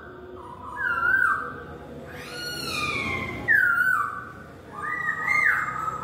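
Caged masked laughingthrush (poksay Hongkong) calling in clear whistled phrases: short sliding notes about once a second and one long falling slur. Near the end a rising note runs into a steady held whistle.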